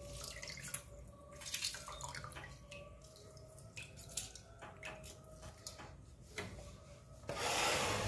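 Lemon juice dripping and small splashes of water as a lemon half is squeezed by hand into a glass bowl of water and vinegar. Near the end comes a louder rush of noise lasting under a second.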